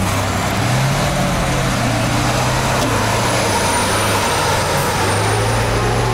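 Heavy diesel engine of a KAMAZ armoured truck pulling hard off-road, its note rising about a second in and again near the end, with the tyres churning over loose dirt.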